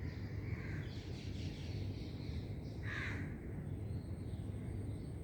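A crow cawing outdoors a couple of times, the clearest call about three seconds in, over a steady low hum.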